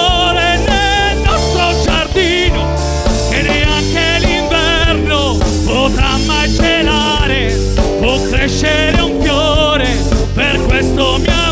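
Live pop band playing an instrumental passage: a wavering lead melody over bass and drums, with tambourine and hand drums in the percussion.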